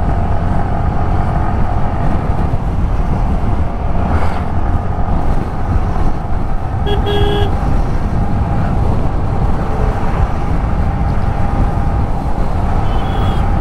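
Yamaha motorcycle running steadily at cruising speed, with heavy wind and road rumble. About seven seconds in, a vehicle horn beeps briefly, and a fainter beep comes near the end.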